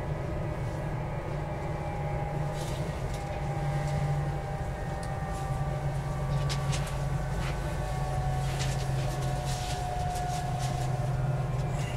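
Siemens Velaro D (DB Class 407) high-speed train decelerating on 15 kV 16.7 Hz AC: its IGBT traction inverter sounds as steady tones that shift slightly downward in steps, over the rumble of wheels on rails, with scattered light clicks.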